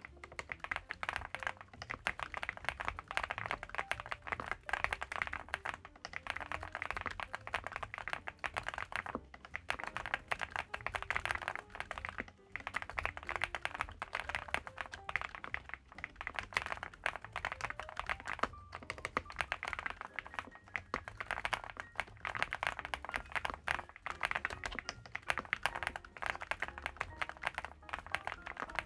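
Fast, continuous typing on a Velocifire Infi75 75% gasket-mount mechanical keyboard with layered internal foam, key after key clicking in quick runs broken by brief pauses every few seconds.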